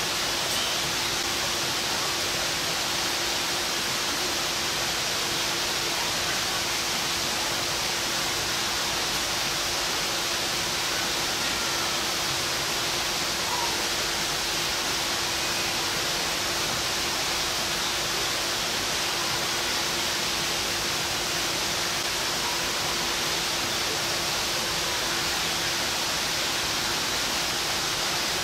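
Steady, even rushing noise with a faint constant hum underneath, unchanging throughout.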